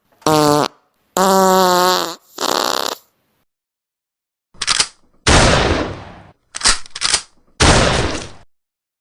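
A run of separate comedy sound effects. It opens with a short falling tone and a buzzing cartoon fart with a wobbling pitch. After a pause of about a second and a half come several noisy bursts that each fade out like hits or crashes.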